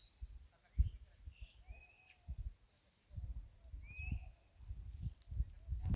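Crickets chirping steadily in a rhythmic pulse of about four a second, over a constant high insect hiss. A few short bird calls come near the start, midway and later on, over low irregular rumbling.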